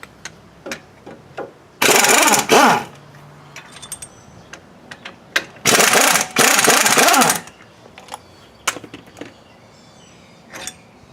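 Impact wrench hammering in three bursts, about a second each, the motor spinning up and winding down with each one, as it loosens the brake caliper bolts. A few light clicks of tools handled between the bursts.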